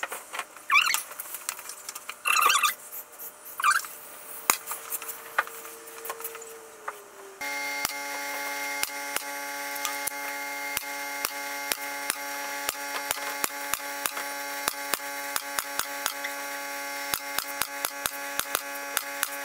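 MDF panel scraping, rubbing and knocking as it is fitted against the wooden enclosure frame. About seven seconds in, a steady hum starts abruptly, with a rapid, uneven run of sharp clicks over it.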